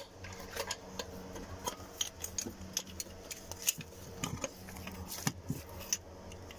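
Scattered light metallic clicks and clinks as hand tools and a wiring-harness retaining bolt are handled on a transmission, over a faint steady hum.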